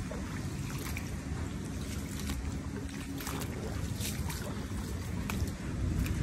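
Rainstorm with wind: a steady low rumble of rain and wind on the microphone, with scattered sharp drips or splashes.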